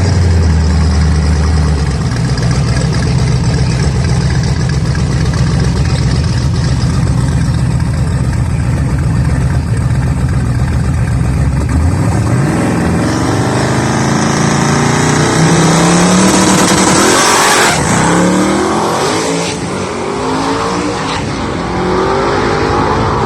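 Drag race car engine running loud and steady at a low pitch, then revving up and accelerating hard from about halfway through, with a sudden break near three quarters of the way in and the engine pitch falling and climbing again afterwards.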